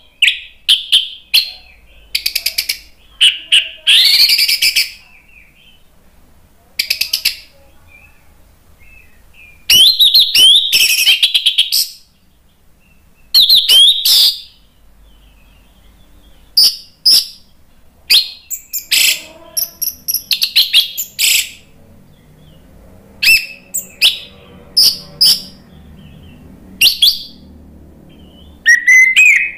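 Orange-headed thrush (anis merah) singing loud, full song: short phrases of clear whistles and rapid chattering note strings, with pauses of one to a few seconds between them.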